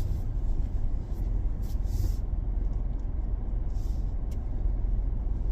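Steady low rumble of a car running, with a few faint ticks over it.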